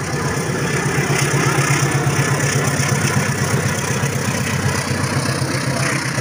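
Diesel engine of a KAI CC206 diesel-electric locomotive passing at close range with a passenger train, a steady pulsing drone.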